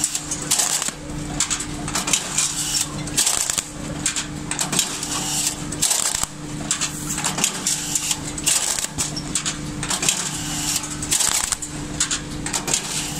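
Semi-automatic box strapping machine running through its strapping cycles. A steady motor hum is broken every second or two by short harsh bursts of noise as the plastic strap is fed, pulled tight and sealed around a carton.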